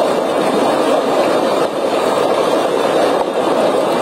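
Floodwater rushing fast down a flooded residential street, a loud, steady rushing noise.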